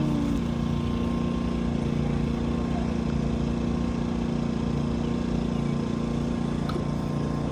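Vehicle engine running at a steady idle, a low even hum.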